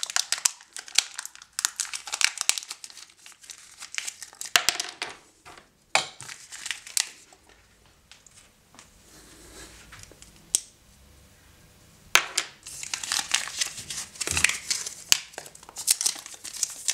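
Kinder Joy plastic toy capsule handled and opened with sharp plastic clicks, then the toy's wrapping crinkled as it is unwrapped. The crinkling goes quiet for a few seconds in the middle, then picks up again, dense and busy.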